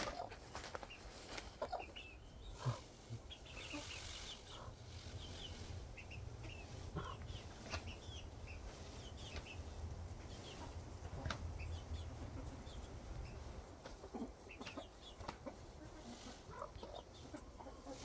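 Chickens clucking quietly now and then, short scattered clucks, with a faint low rumble in the middle stretch.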